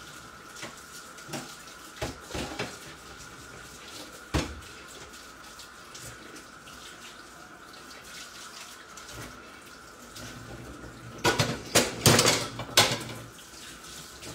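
Peas-and-egg frittata sizzling and crackling in a frying pan on the hob, with scattered light clicks. Several loud knocks and clatters come about eleven to thirteen seconds in.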